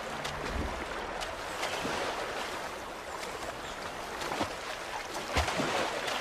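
Fast river water rushing and churning over rocks, with scattered splashes.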